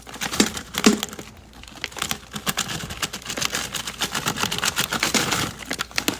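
Irregular clicking and crinkling of a plastic food package being handled, with a few sharper cracks in the first second.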